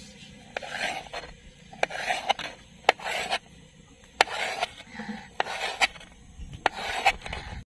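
A knife cutting through a block of steamed egg in repeated short scraping strokes. The blade clicks sharply on the lid beneath a few times.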